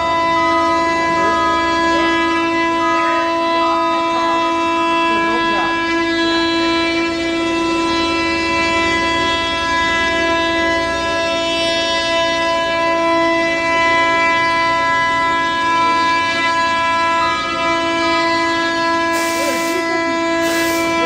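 Steady machine whine holding one pitch with a stack of overtones, unchanging throughout, with two short high hisses near the end.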